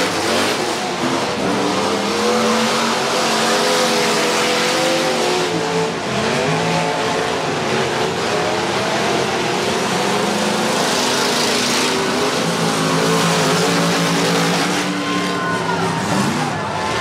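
Several derby cars' engines running hard around a dirt oval, overlapping engine notes rising and falling as the cars accelerate, lift off for the turns and pass by, over a constant rush of noise.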